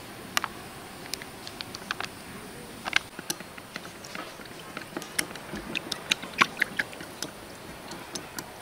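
Chopsticks clicking and tapping against the sides of a small bowl while stirring a thin liquid sauce: irregular sharp clicks, sparse at first and coming more often after about three seconds.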